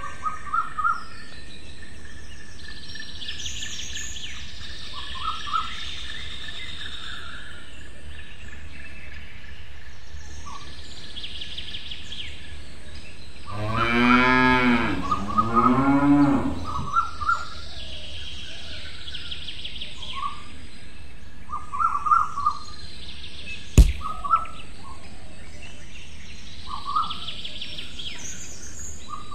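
Farm ambience track: a cow moos once around the middle, a drawn-out call of about three seconds, while small birds chirp now and then over a steady background hiss. A single sharp click comes later on.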